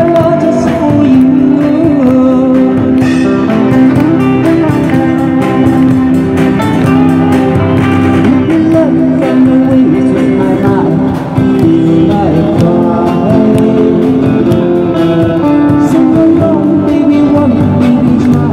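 Live amplified band music: electric guitar and drum kit playing an old pop song, with a singer's voice through a PA.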